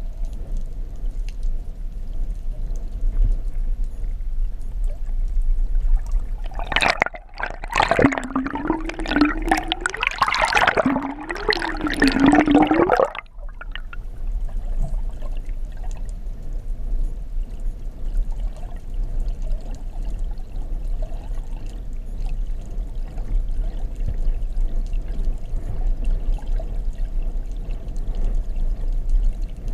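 Underwater ambience: a steady hiss and low rumble of water. For about six seconds near the middle, a loud wavering sound with a low tone that rises and falls rises over it, then cuts off suddenly.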